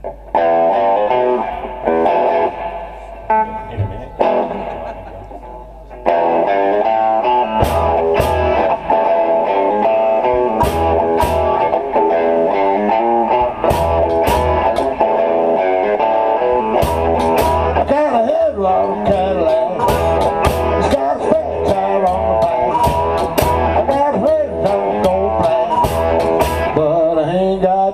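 Live blues band playing: stop-start electric guitar phrases open, then about six seconds in the full band comes in with upright bass, a steady drum beat and harmonica.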